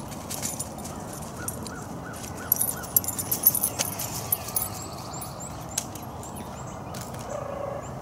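Footsteps crunching and crackling on dry leaves and pine straw for about two seconds, beginning about two and a half seconds in. Small birds chirp now and then.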